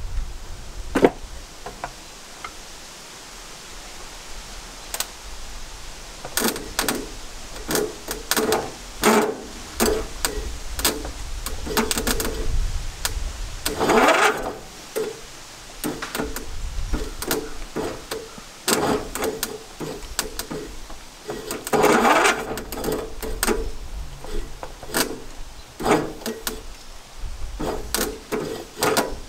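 Irregular metallic clinks, knocks and rattles of hand tools and engine parts being handled, with a few longer clattering runs about 14 and 22 seconds in.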